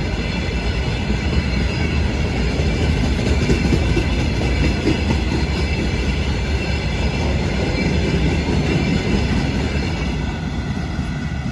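Freight train wagons rolling past: a steady heavy rumble of wheels on rail, with a thin high ringing over it, easing off slightly near the end.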